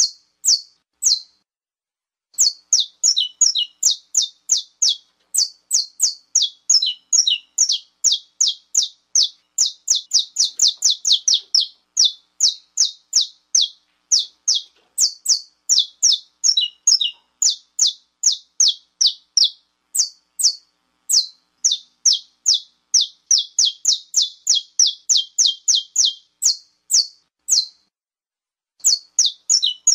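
Saffron finch (canário-da-terra) giving its 'estalo' call: long runs of short, sharp high notes, each dropping quickly in pitch, about four to five a second, broken by a few short pauses.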